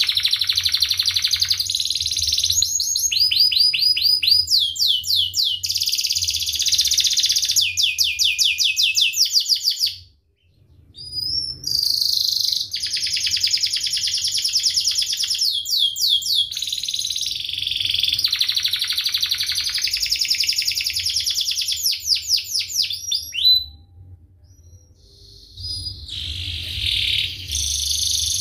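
Domestic canary singing a long, fast song of rolling trills and repeated chirps, with two short breaks.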